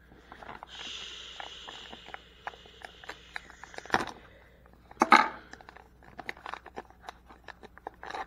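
Thin plastic wrapper of a toy surprise egg being torn and peeled off by hand: a couple of seconds of steady crinkling, then scattered crackles and clicks, with two louder cracks about four and five seconds in.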